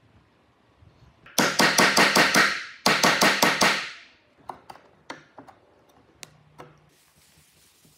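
A chisel being struck in two quick runs of about half a dozen sharp taps each, chopping into the corner of a walnut box. A few faint clicks follow as the chisel pares by hand.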